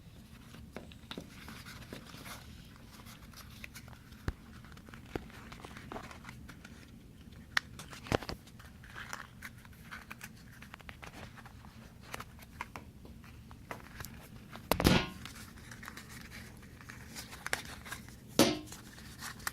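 Fidget cube packaging being handled and fitted back together: scattered crinkling and small clicks, with a few louder knocks, one about eight seconds in and two more near the end.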